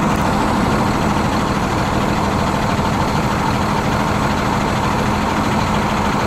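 Steady city traffic noise with a constant low engine hum, unbroken throughout.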